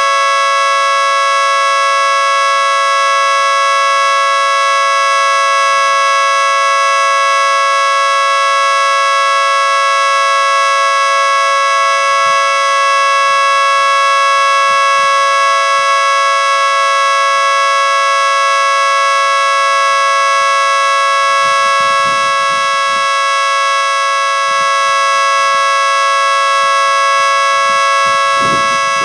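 Miniature 3T22B three-tone siren sounding a loud, steady chord that holds its pitch without rising or falling, as in the steady Alert signal.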